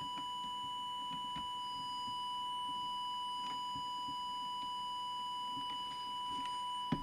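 Steady, unbroken test tone from an audio oscillator, the signal fed into a CB transmitter to set its FM deviation, with a few faint clicks from the bench.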